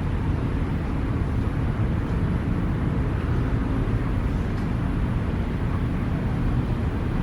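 Steady low rumble of distant city traffic, an even noise without distinct events.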